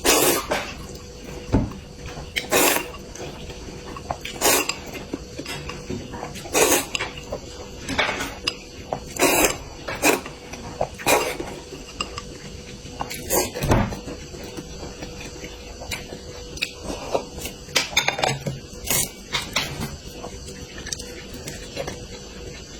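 Eating sounds: utensils clicking and knocking against dishes, sharp clicks every second or two, over a faint steady hum.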